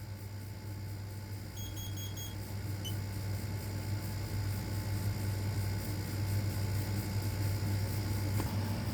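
Steady low hum with a faint set of four quick, high-pitched smoke/CO alarm beeps about one and a half seconds in, and a small click shortly after.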